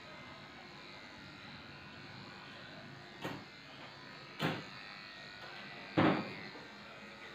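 Corded electric dog-grooming clippers buzzing steadily as they shave a shih tzu's coat. Three short, sudden louder noises cut in about three, four and a half and six seconds in, the last the loudest.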